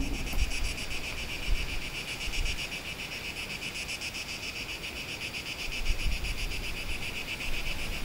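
Insects chirping in a steady, rapid, evenly pulsing chorus, cutting in with the music's end and stopping near the end.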